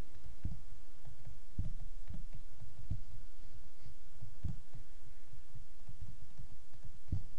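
Stylus writing on a tablet: irregular soft low thumps, roughly one a second, with a few faint clicks, over a steady low hum.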